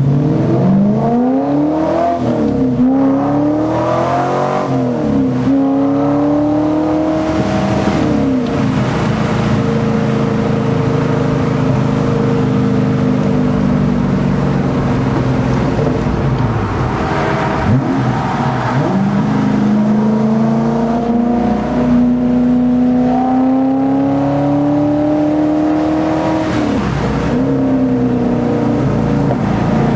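2003 Corvette Z06's LS6 V8 with long-tube headers and Borla Stinger exhaust, heard from inside the car under hard acceleration on a race track. The engine note climbs and drops with quick upshifts in the first few seconds, then holds long, slowly rising pulls in the higher gears, with another shift near the end.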